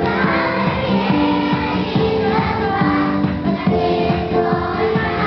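A group of young children singing together over a recorded backing track with held notes and a steady beat.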